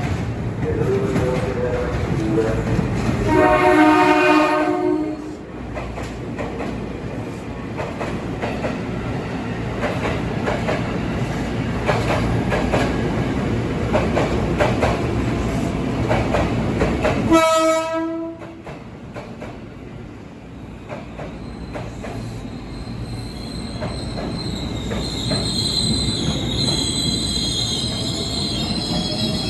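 Train running past with steady wheel rumble and clicking over the rail joints. Its horn sounds twice: a longer blast in the first few seconds and a short blast just past halfway. In the last few seconds the wheels squeal with a high screech.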